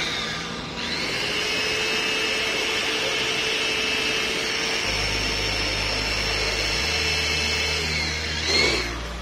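Handheld electric drill drilling a hole through a motorcycle's plastic front fairing for the mirror wiring. The motor runs with a steady whine for about eight seconds, then slows and stops near the end.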